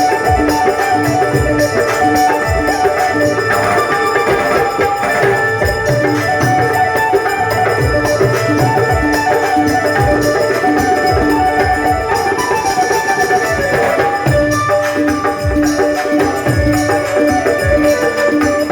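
Instrumental folk music: a held melody line over hand-drum strokes and jingling percussion.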